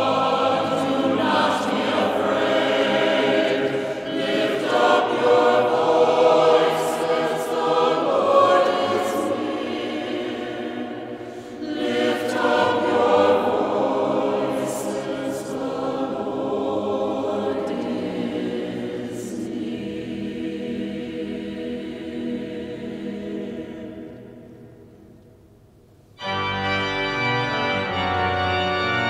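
Choir singing with organ accompaniment, fading out about 25 seconds in; then organ music starts abruptly near the end.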